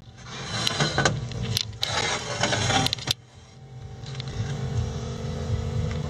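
Parts washer running: a steady pump hum under splashing cleaning fluid as a cast aluminium intake manifold is washed, with two louder bursts of splashing and scrubbing in the first few seconds, then steadier flow.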